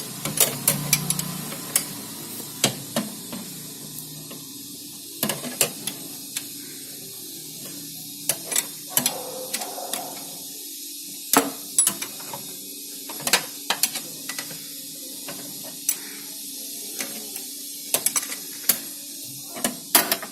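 Wrench working the adjusting nut of a car's drive-belt adjustment link: irregular sharp metallic clicks and taps, often in quick runs of two to four, over a steady faint hiss.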